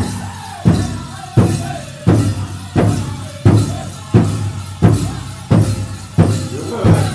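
Powwow drum group playing a chicken dance song: the big drum is struck in unison on a steady beat of about three strokes every two seconds, with singers' voices above it.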